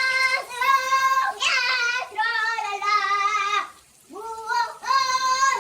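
A high-pitched voice giving a series of long held notes, each with a short slide in pitch at its start, broken by a brief pause about four seconds in.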